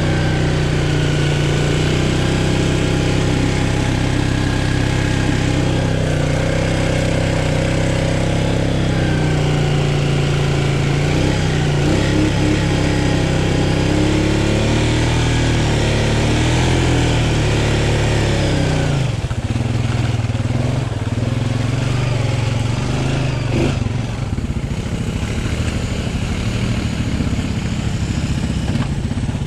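ATV engine running and being revved while churning through thick mud, its pitch rising and falling as the throttle is worked, then settling to a lower, steadier note about two-thirds of the way through.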